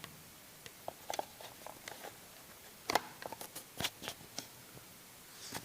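Handling noise of a phone being set and wedged into place: scattered small clicks and taps, with a quick cluster of knocks about three seconds in.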